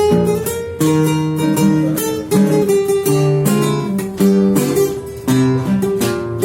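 Instrumental break of a sung song: acoustic guitars strumming a steady rhythm, with melody notes held over changing chords.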